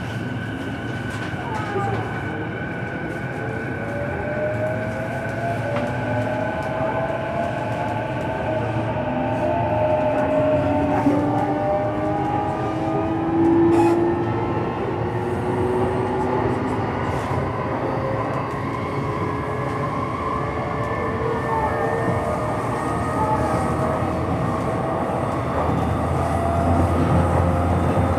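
Inside the motor car of a JR East E233-series electric train running on the line: the VVVF inverter and traction motors give several slowly sliding whining tones over the steady rumble of wheels on rail, a little louder near the end.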